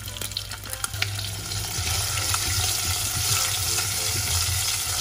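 Cornflour-coated chicken pieces sizzling in hot oil in a saucepan. The sizzle grows louder about a second in, with a couple of light knocks near the start as the pieces are moved in the pan.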